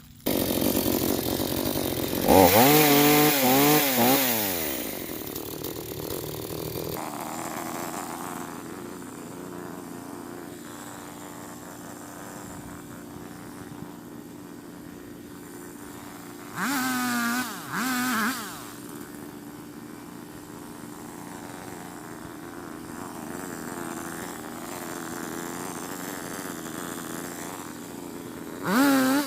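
Gasoline chainsaw running: it revs up hard a few seconds in, then settles to a steady idle, with short bursts of throttle about two-thirds of the way through and again near the end.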